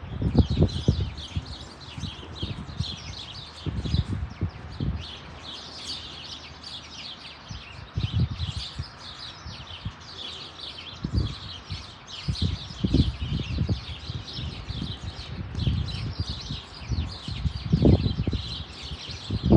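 Many songbirds chirping and twittering together in a dense, continuous chorus. Irregular bursts of low rumble come and go underneath and are the loudest thing at those moments.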